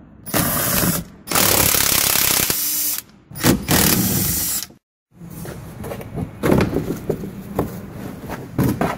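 Power tool with a 13 mm socket spinning off the truck fender's stud and bolts in three bursts, one short, one long and one medium. After a break come scattered knocks and rattles as the loosened parts are handled.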